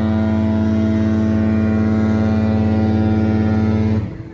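Cruise ship's horn sounding one long, deep, steady blast that cuts off near the end.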